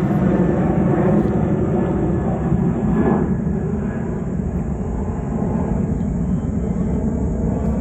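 A steady low rumble with a faint high hiss above it.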